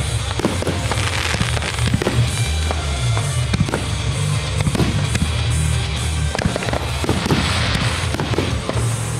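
Aerial fireworks bursting overhead in a rapid string of bangs, with music playing alongside.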